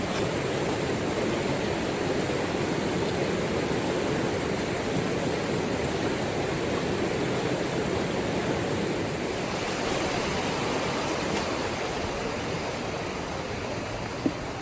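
Steady rush of a mountain stream running over rocks, an even unbroken noise, with one short knock near the end.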